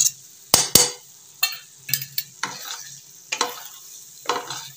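Wooden spatula stirring and scraping egg masala in a kadhai, with irregular knocks against the pan (two sharp ones close together about half a second in) and the oily masala sizzling as it fries.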